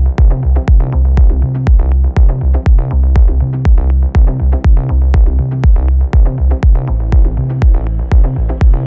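Melodic house music: a steady four-on-the-floor kick drum at about two beats a second under a deep rolling bass line and sustained synth chords.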